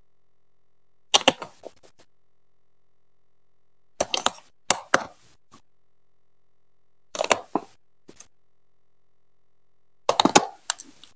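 Hard plastic Duplo track pieces being set down and pressed onto a Duplo baseplate: four short clusters of sharp plastic clacks, a few seconds apart.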